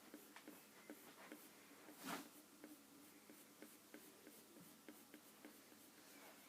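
Faint scratching and light tapping of a drawing tool on a drawing surface, with one longer, louder stroke about two seconds in.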